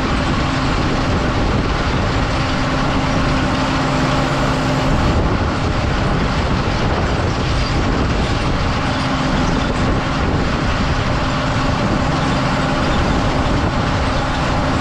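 JCB Fastrac 1125 tractor running steadily under load while pulling harrows across a dry field, a constant loud engine and working noise with a low steady hum.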